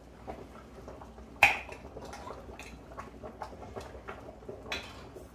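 Jar of Alfredo sauce being emptied into a stainless steel mixing bowl, knocking and scraping against the bowl: small clicks throughout, with one sharp ringing clink about a second and a half in and another near the end.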